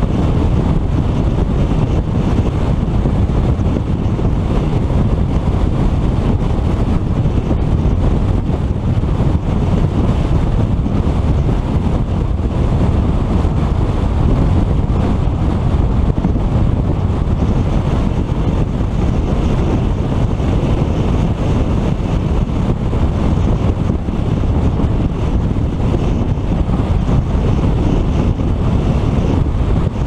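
Steady wind rush over a hood-mounted GoPro's microphone as a 2014 Ford Mustang GT cruises at highway speed, with deep road and drivetrain rumble underneath.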